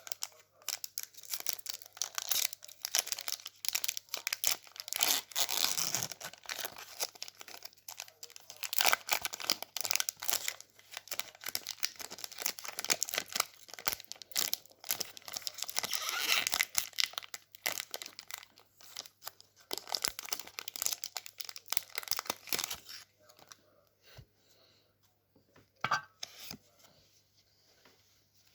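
Foil booster pack wrapper being torn open and crinkled in the hands, a dense crackling that runs on and stops about 23 seconds in, followed by a few light taps.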